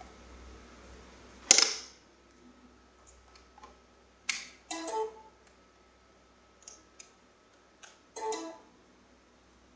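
Clicks and knocks from a USB cable and laptop being handled: one sharp, loud click about one and a half seconds in, then several quieter clicks and short rattles.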